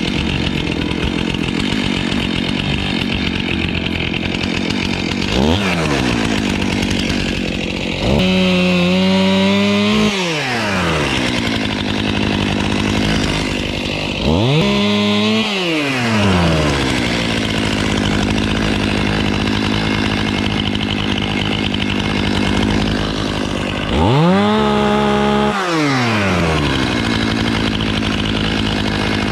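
Stihl Farm Boss two-stroke chainsaw idling, revved up to full speed three times for a second or two each as it cuts overhead branches, with a short blip before the first cut. Each time it drops back to a steady idle.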